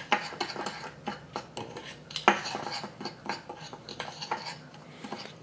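A spoon stirring a dry seasoning mix of sugar, salt, white pepper and curry powder in a small bowl, with quick irregular clinks and scrapes and one sharper tap a little past two seconds in.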